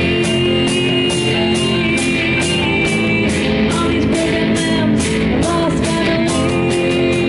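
Live rock band playing: electric guitars over a drum kit keeping a steady beat of about two hits a second.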